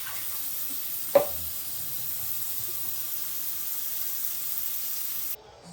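A steady rushing hiss like water running from a tap, which stops abruptly near the end. There is one short sharp sound about a second in.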